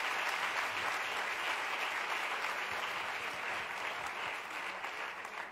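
A large audience applauding steadily, a dense even clatter of many hands, slowly easing off near the end.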